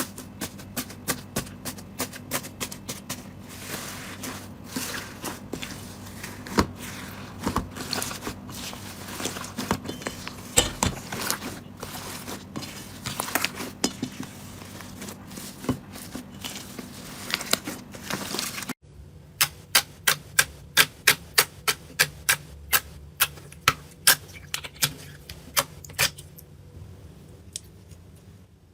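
Slime being pressed and poked, giving many sharp clicking pops from trapped air. After a cut a little past halfway, the clicks come in a steadier run of about two or three a second.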